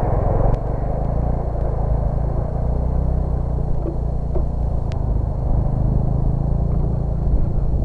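A 250 cc ATV engine running steadily, a low drone that holds an even pitch with only small changes in revs.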